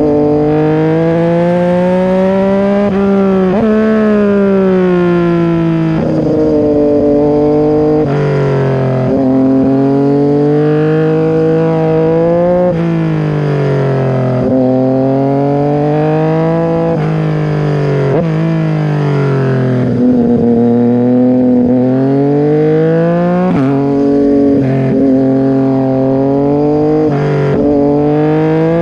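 Yamaha MT-09 SP's three-cylinder engine running loud through an SC-Project full exhaust with the dB killer removed, being revved under way: the pitch climbs over a few seconds, then drops sharply, over and over.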